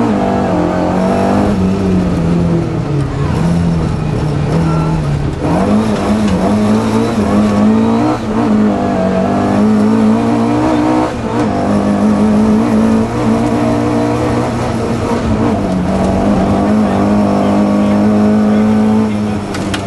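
Ford historic rally car's engine heard from inside the cabin, running hard under load. Its pitch falls and climbs again several times, with a longer drop near the end.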